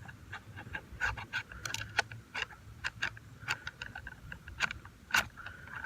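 Ramrod pushing a Power Belt bullet down a muzzleloader barrel: a run of irregular metallic clicks and scrapes.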